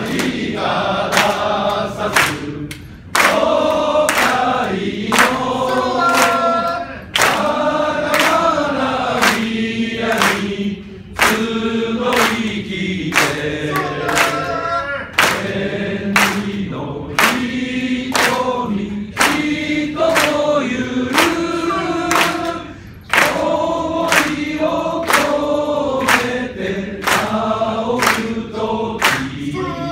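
A crowd of men singing a song together in unison, with steady hand claps keeping the beat.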